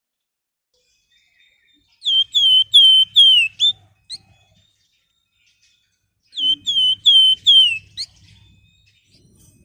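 Flamboyan (Javan fulvetta) whistling its song: two phrases a few seconds apart, each four or five clear repeated notes with the last one sliding down, then a short rising note.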